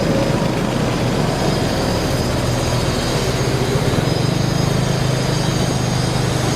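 Wind buffeting the microphone while riding a moving motorcycle taxi, with the motorbike's engine humming underneath; the engine hum grows louder about four seconds in.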